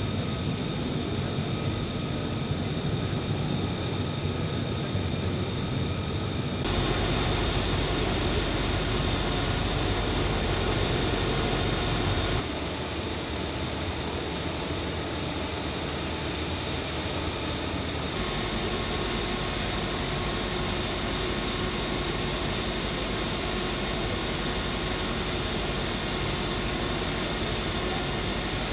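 Steady jet aircraft engine noise: a high whine over a rumble, which changes abruptly in level and tone a few times.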